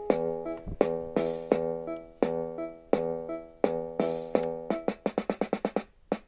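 Background music: a melody of short, sharply struck notes, with a quick run of rapidly repeated notes about five seconds in and a brief break just before the end.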